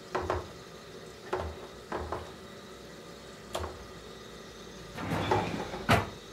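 Hard plastic lid and plastic bowl knocking together as they are handled: a few light separate knocks. Near the end comes a short scrape and then a sharper knock as a kitchen drawer is pulled open.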